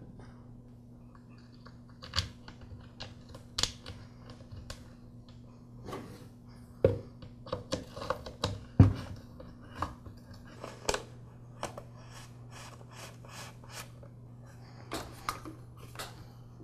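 Black plastic muffler cover being fitted by hand onto a small two-cycle engine and its screws turned with a hex key: scattered light clicks and plastic knocks, busiest about halfway through, over a faint steady hum.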